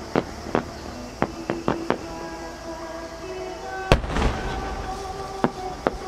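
Size-10 (12-inch) aerial firework shells bursting: a string of sharp bangs and cracks, with one much louder boom about four seconds in. Music plays in the background.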